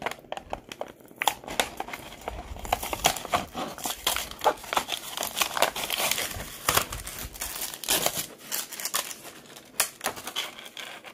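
Crinkling and irregular small clicks of hands handling a die-cast toy car close to the microphone.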